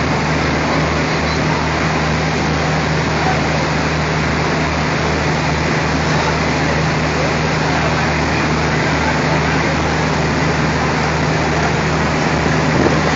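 ALCO diesel-electric locomotive's engine running with a steady low hum under a loud, even rushing noise as the locomotive rolls slowly forward, with a brief knock near the end.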